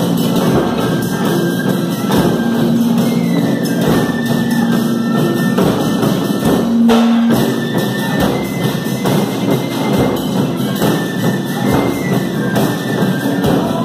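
A large ensemble playing taiko drums, with shoulder-slung barrel drums among them, in a dense, driving rhythm of many drums struck together.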